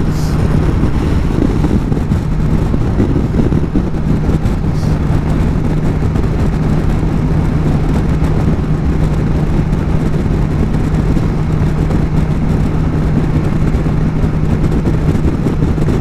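BMW S1000 XR's inline-four engine running at a steady cruising speed, holding one constant note, under continuous wind rush on the helmet-mounted microphone.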